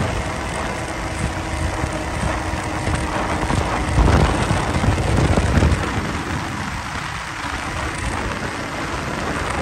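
Snowmobile running at speed over packed snow, its engine's steady drone mixed with a heavy rush of wind on the microphone, swelling louder about four seconds in and again a second and a half later.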